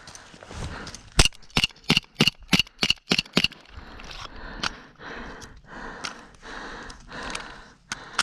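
Airsoft gun shots in a rapid string of about ten sharp cracks, roughly four a second, then a rhythmic rustle about twice a second with another sharp crack near the end.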